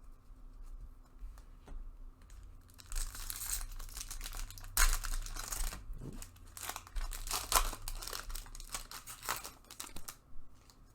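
Wrapper of a Bowman baseball card pack being torn open and crinkled: a run of ripping and rustling that starts a few seconds in and stops near the end, with one sharp crack about halfway.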